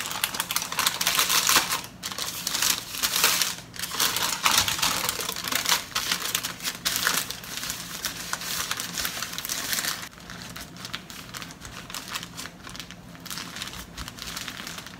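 Baking paper crinkling and rustling as hands roll a cream-filled sponge cake up inside it. The rustling is fuller for about the first ten seconds, then softer.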